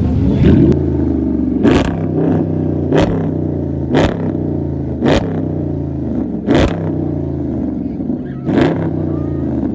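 Sports car engine idling with a steady low exhaust note, revved in short, sharp throttle blips about every one to two seconds.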